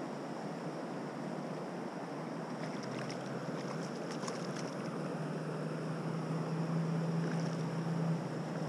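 Steady rush of river water with wind on the microphone. A hooked trout splashes at the surface about three to four seconds in, and a low steady hum sets in about five seconds in and lasts about three seconds.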